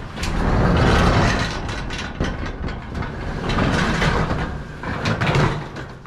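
Corrugated metal roll-up door of a storage unit being pushed up on its track: a long rolling rumble, loudest in the first couple of seconds and easing off toward the end.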